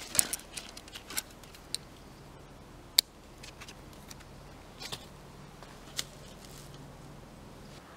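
Fabric rustling and light metal clicks as a small folding stick table is drawn from its pouch and its legs are opened out, with a sharp click about three seconds in and two more near the end.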